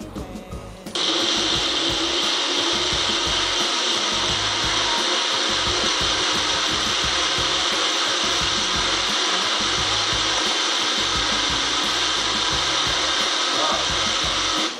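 Magic Bullet blender running, starting about a second in and stopping abruptly just before the end: a loud, steady motor noise.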